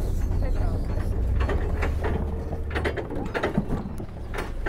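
Hand-cranked deck winch on a sailing clipper being worked, its ratchet pawl giving a run of irregular clicks, over a low rumble that eases off about three seconds in.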